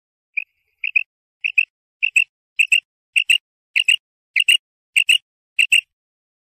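Female common quail calling: one short high note, then about nine quick double notes repeated a little over half a second apart, the call hunters use to lure male quail.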